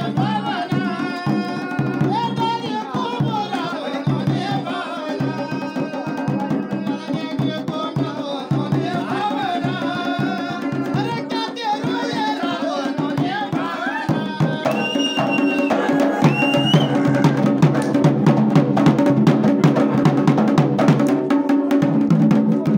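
Garhwali folk music for a mandaan dance: a singing voice over fast, steady drum beats, with a high held note briefly about fifteen seconds in. The drumming grows denser toward the end.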